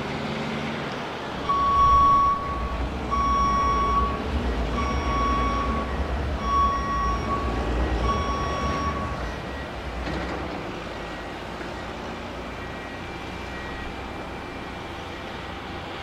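Construction vehicle's reversing alarm sounding five steady beeps about two seconds apart, over a low engine rumble that fades near the end.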